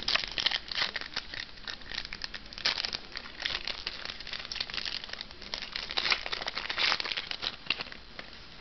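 Foil wrapper of a trading card pack crinkling in the hands as the pack is opened, a quick run of crackles that dies down near the end.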